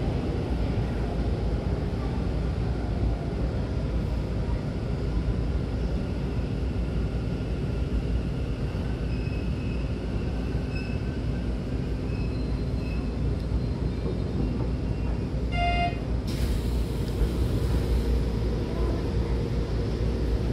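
Hanshin train rumbling as it slows to a stop in the station, with faint high brake squeals near the halt. About three-quarters of the way in, a short beep is followed by a hiss of air as the doors open.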